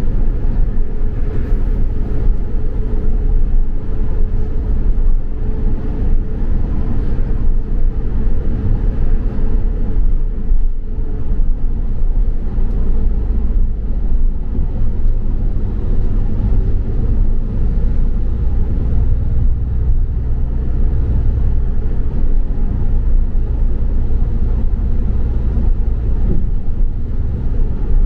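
Double-decker bus driving, heard from on board: a steady low rumble of engine and road noise.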